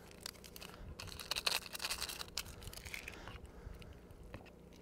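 Light crinkling and scattered clicks of a ramen seasoning packet being opened and emptied into the pot, busiest about a second and a half in.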